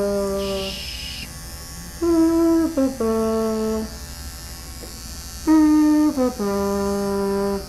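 Electric dog clipper running with a steady low hum. Over it, a two-note falling tone, a long higher note and then a lower one, comes three times, about every three seconds, and is louder than the clipper.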